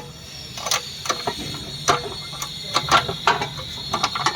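Irregular sharp metallic clicks and knocks, about two a second, from hand tools and steel parts as the car's front subframe and steering assembly are worked into place.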